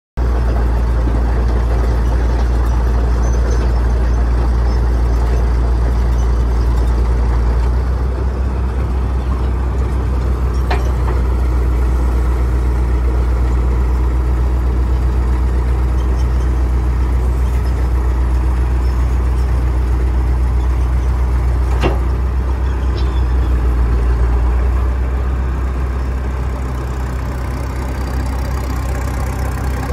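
Engine of an old cable-operated power shovel running steadily, with two sharp clanks, one about 11 seconds in and one about 22 seconds in. The engine eases off slightly about 25 seconds in.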